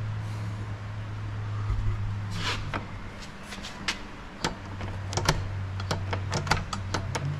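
Irregular small clicks and taps of a car door latch being handled and fitted, starting about two seconds in, over a steady low hum.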